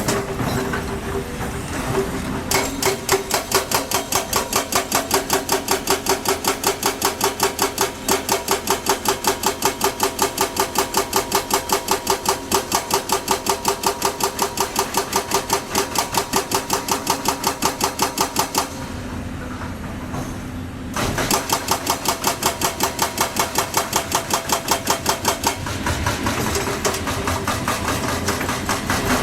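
Heavy excavator's diesel engine running, with fast, evenly spaced metallic strikes, about four or five a second. The strikes pause for a couple of seconds about two-thirds of the way through, then resume before dying away near the end.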